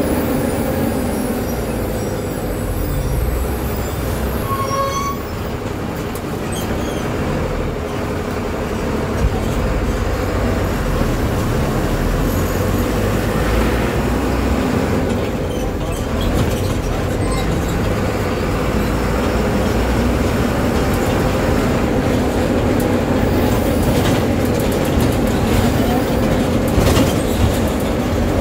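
Inside a GSRTC bus cab: the diesel engine running and the bus rolling along a rough road, its body and fittings rattling, with more clatter near the end.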